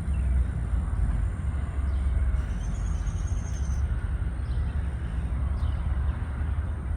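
Faint rustling and clicking of squirrels moving through tree branches over a steady low rumble. A thin, high call sounds for about a second, starting about two and a half seconds in.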